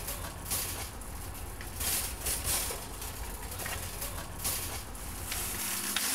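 Outdoor background noise: a steady low rumble under an even hiss, with a few faint scattered ticks. The low rumble drops away near the end.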